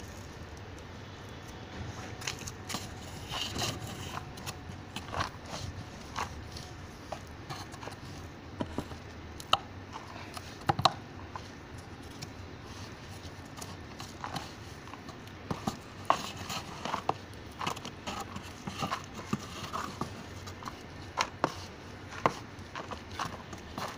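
Dry compost being scraped and stirred in a plastic drum: scattered scrapes, rustles and light clicks, coming more often in the second half.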